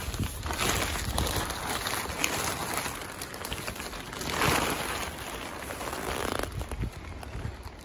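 Empty plastic compost bag crinkling and rustling as it is handled, with a louder stretch of rustling about halfway through.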